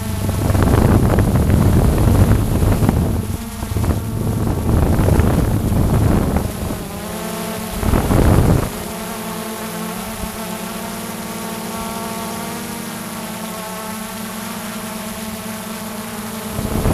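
Drone's propellers and motors buzzing with a steady whine, with loud gusts of wind noise on the microphone over the first few seconds and again briefly about eight seconds in.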